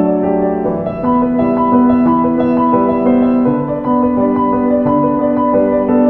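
Background piano music: a slow, gentle melody of held notes and chords.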